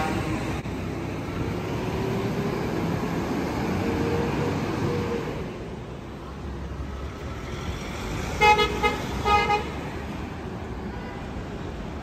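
Heavy lorry and street traffic running past, louder for the first few seconds and then fading. About eight and a half seconds in, a vehicle horn gives two short toots.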